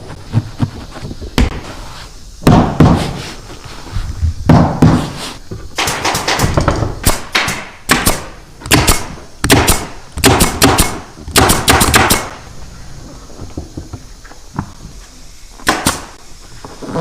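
Sharp knocks and clatter, with quick runs of rapid clicks packed together between about six and twelve seconds in, and a few single knocks before and after.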